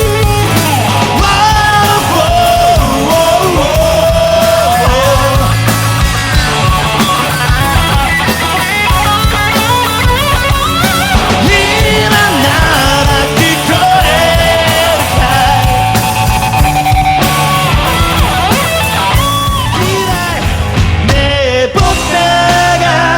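A live rock band playing a cover song loud, with drums, bass and guitars under a wavering melodic lead line.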